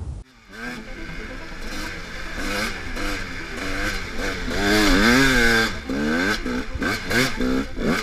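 Dirt bike engine revving, its pitch rising and falling again and again as the rider throttles on and off over rough ground; loudest about five seconds in.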